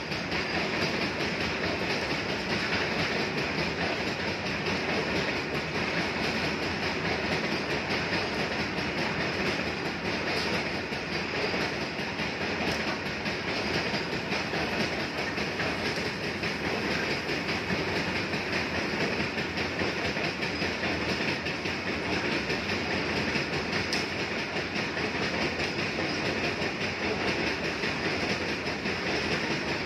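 Freight train of covered hopper wagons rolling past, the wheels clattering steadily over the rail joints.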